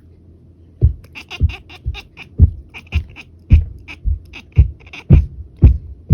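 Tortoiseshell cat chattering at a dragonfly it wants to catch: rapid, high, clicky chirps, the excited hunting chatter cats make at prey they cannot reach. The loudest sounds are low thumps, roughly two a second, mixed in with the chirps.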